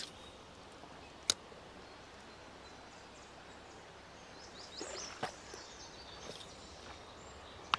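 Quiet streamside outdoor ambience: a faint steady background, a few high bird chirps near the middle, and one sharp click a little over a second in, with a softer click later.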